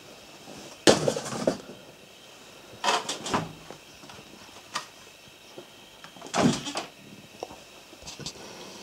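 Clattering knocks and rattles from an Axial Wraith RC rock crawler bumping over metal shelving. They come in three bursts about a second in, three seconds in and six and a half seconds in, with a single knock in between. The first burst is the loudest.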